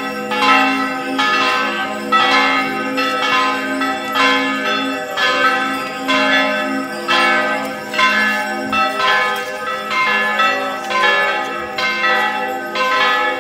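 Church bells ringing continuously, struck over and over in a steady repeating pattern over a low lingering hum, the full peal rung for a Corpus Christi procession.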